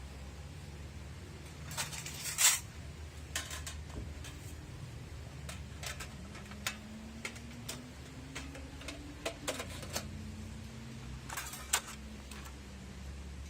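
Metal parts of a wood stove being handled and fitted together: scattered clinks and knocks, the loudest about two and a half seconds in and a small cluster near the end, over a steady low hum.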